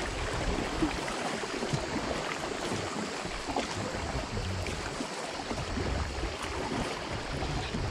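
Water lapping and splashing around a Gumotex Solar inflatable kayak as it is paddled on calm water, a steady wash of many small splashes with a low rumble now and then.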